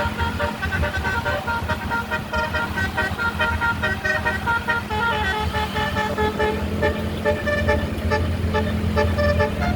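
Basuri 'telolet' multi-tone air horn on a tour bus playing a tune in short stepped notes, over a steady low hum.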